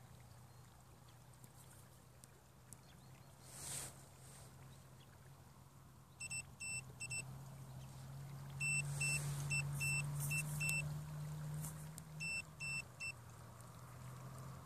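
Electric motor hum of a remote-controlled bait boat, its pitch rising for a few seconds in the middle and then settling back, with three groups of short high electronic beeps from the boat's control or sonar gear.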